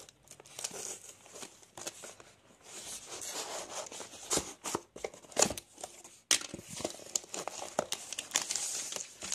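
Cardboard shipping box being handled and opened by hand: irregular crinkling, rustling and tearing of cardboard and paper, with scattered clicks and a sharp snap about six seconds in.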